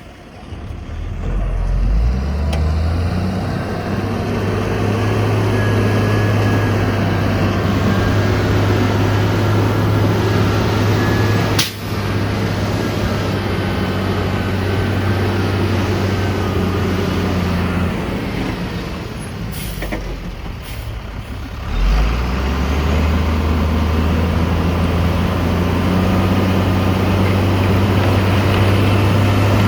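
Heavy diesel engine of earthmoving machinery running hard with a steady low drone. It swells about two seconds in, eases off for a few seconds past the middle, then picks up sharply again.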